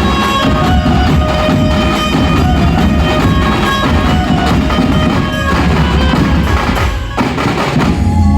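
Danka drums beaten in a loud, dense rhythm, with a steady melodic line sounding over them and a brief drop in loudness near the end.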